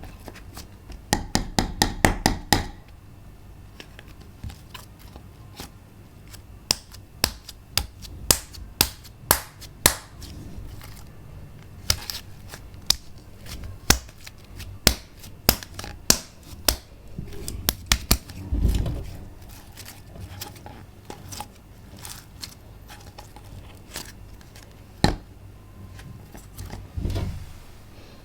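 Slime being pressed and stretched by hand, giving sharp clicking pops. A quick run of about nine clicks comes a second in, then scattered single clicks, and two duller thumps later on.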